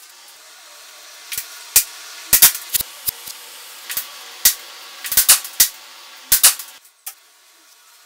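A series of sharp, irregular clicks and knocks, about a dozen, some in quick pairs, over a steady hiss that cuts off suddenly near the end.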